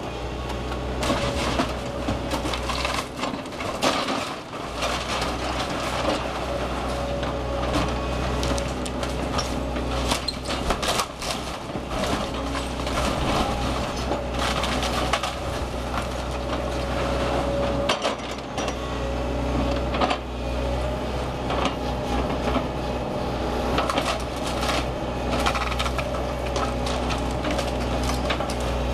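A Link-Belt excavator's diesel engine runs with a steady low hum while the machine's arm tears into the roof and walls of a brick house. Wood cracks and splinters and debris crunches again and again throughout.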